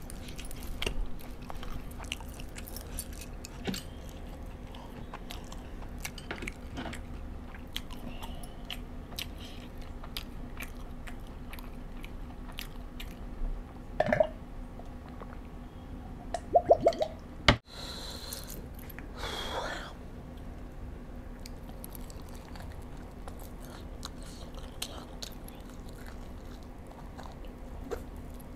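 Close-up chewing and wet mouth sounds of a person eating spicy chicken wings, with many small smacks and clicks. About halfway through come a few louder gulps while drinking water from a glass.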